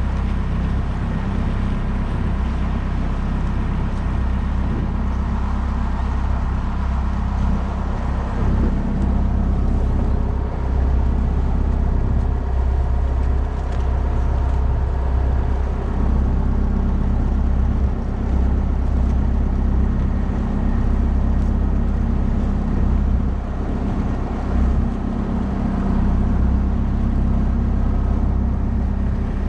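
Boat engine running steadily under way, a constant low drone.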